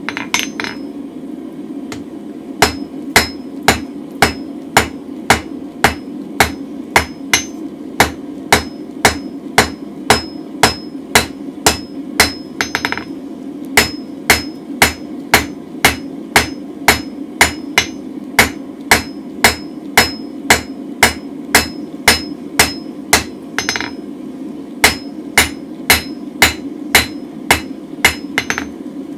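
Hand hammer striking red-hot mild steel on an anvil, about two sharp ringing blows a second with two brief pauses, as the corners of the square bar are knocked off to round it. A steady roar from the gas forge runs underneath.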